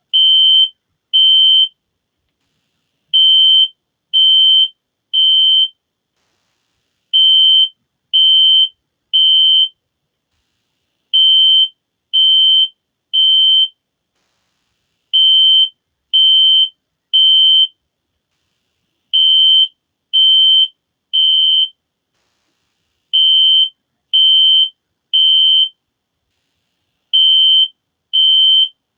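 System Sensor SpectrAlert Classic P1224MC fire alarm horn sounding a high-pitched tone in the temporal-three evacuation pattern: three short beeps, then a pause, repeating about every four seconds.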